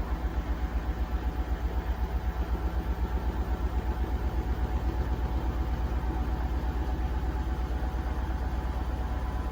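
Beko WTK104121A washing machine drum spinning up in its final intermediate spin with an unbalanced load. The low hum pulses rhythmically, and the pulses quicken as the drum gathers speed until they blur into a steady drone about six seconds in.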